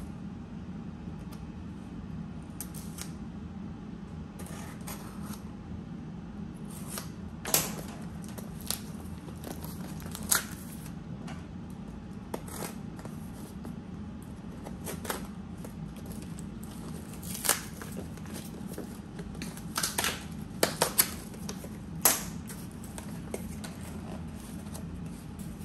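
Small cardboard boxes being opened by hand: packing tape slit and pulled and the cardboard flaps crackling, heard as scattered sharp snaps, thickest in the second half. A steady low hum runs underneath.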